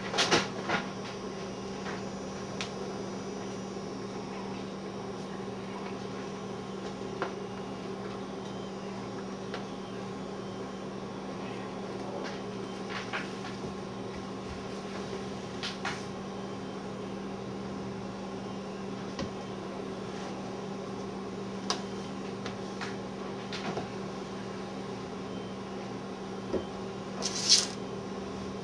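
Quiet room tone with a steady electrical hum. A few faint clicks and knocks come through it, and a short hissing noise comes near the end.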